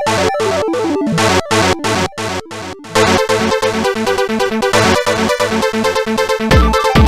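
Trance-style electronic ringtone from a Samsung SGH-X460 mobile phone: fast, chopped synth chords that change about three seconds in to a denser pattern over a held note, with a deep beat coming in near the end.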